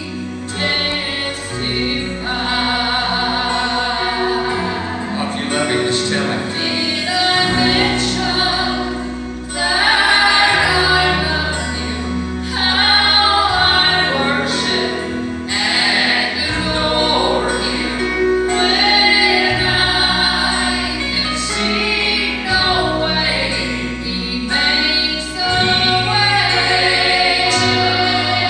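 A woman and a man singing a gospel song as a duet through handheld microphones, over instrumental accompaniment with sustained bass notes.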